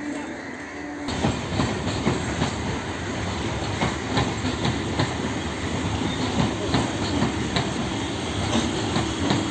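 Steady rumbling noise with rapid, irregular clattering, starting abruptly about a second in.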